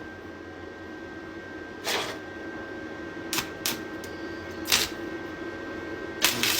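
Stick welding arc from a TOOLIOM TL-195S stick welder at 65 amps: a few short crackling bursts as the electrode is struck against the work, then near the end the arc catches and settles into a steady frying crackle.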